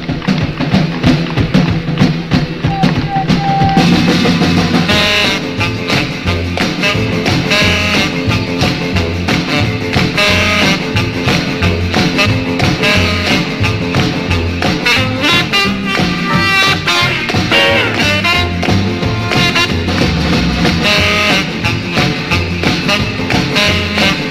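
Upbeat band music with a steady beat, growing fuller about four seconds in.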